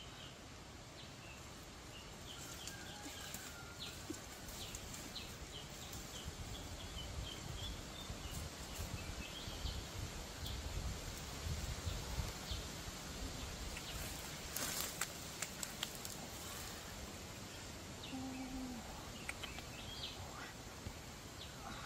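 Outdoor ambience with small birds chirping now and then over a steady hiss. A low rumble builds in the middle, and a quick cluster of sharp clicks or knocks comes about two-thirds of the way through.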